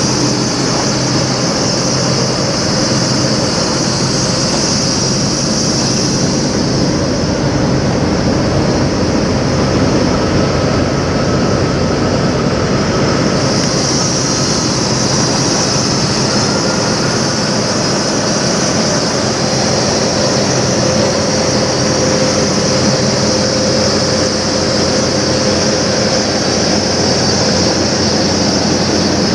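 Steady drone of idling diesel truck engines, with a constant hiss over it.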